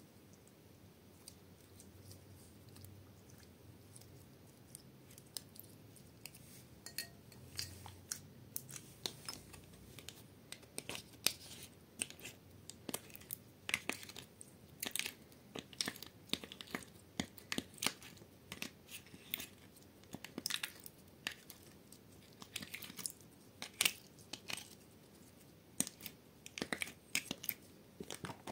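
Sticky slime being stretched, squeezed and scooped out of a plastic tray by hand, making wet sticky clicks and pops. Sparse and faint at first, the clicks come thick and fast from about ten seconds in.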